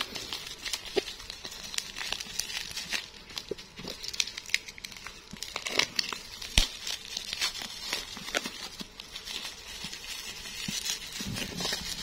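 Plastic bubble wrap crinkling and crackling as it is handled and cut open with a utility knife, in many irregular short crackles, with one sharper click about six and a half seconds in.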